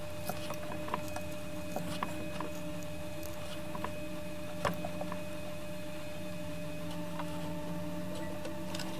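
Scattered small clicks and creaks of a 1/4-18 pipe tap being turned by hand, cutting threads into the plastic wall of a gas can, over a faint steady hum.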